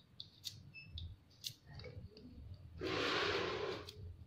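Light clicks of peeled garlic cloves and shallot pieces dropping onto a stone mortar, several in the first second and a half. Near the end comes a louder rustle lasting about a second.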